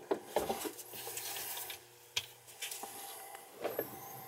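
Shirt fabric rubbing and rustling against the microphone, with a few light knocks.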